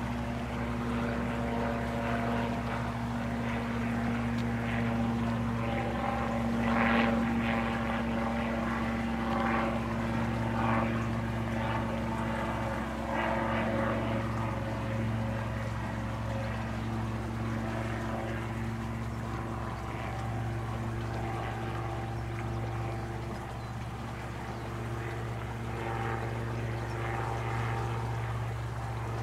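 Piper L-4 Grasshopper's small four-cylinder Continental engine and propeller running as a steady drone on approach to land, the pitch shifting slightly a few times.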